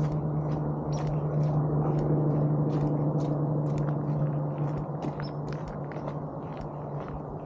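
Footsteps of a person walking down a mountain road, regular steps about three a second. Under them runs a steady low hum that fades in the second half.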